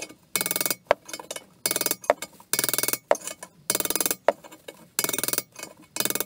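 Hammer driving a long steel punch through a motorcycle's steering head tube to knock out an old tapered-roller bearing outer race, about one blow a second. Each blow is a short, ringing metallic clatter, with lighter clinks between blows.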